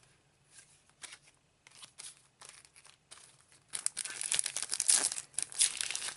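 Booster pack wrappers crinkling and tearing as trading-card packs are opened: faint scattered rustles at first, then a dense burst of crinkling from about four seconds in.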